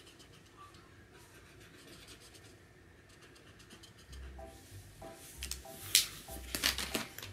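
Felt-tip markers scribbling on paper in quick, light strokes as drawings are coloured in. From about four seconds in, faint background music with a low repeating beat comes in, and a sharp click sounds about six seconds in.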